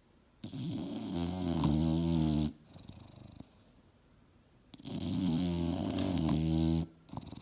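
English bulldog snoring in her sleep: two long, deep snores of about two seconds each, with a softer breath out between them.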